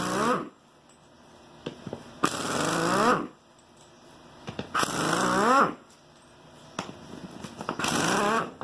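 Impact wrench run in four short bursts of about a second each, loosening the lug nuts of a tractor front wheel. Each burst falls in pitch as it ends.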